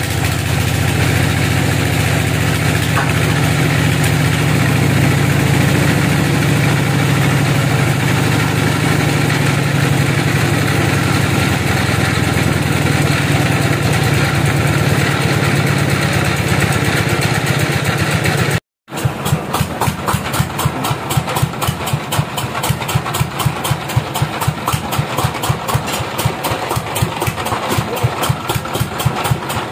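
Sawmill log bandsaw and its engine running with a steady low hum. After a sudden break about two-thirds of the way in, an engine idles with an even, rapid beat.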